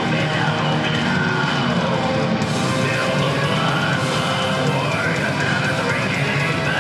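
Heavy metal band playing live, loud.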